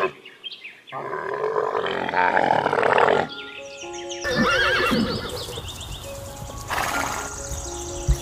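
Recorded animal calls over background music: a rough animal call lasting about two seconds, then from about four seconds in a horse whinnying several times.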